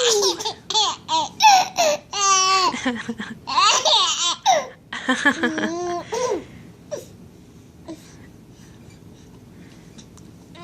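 A woman's pretend sneeze, "Choo!", followed by a 7½-month-old baby laughing in many short, high-pitched bursts for about six seconds.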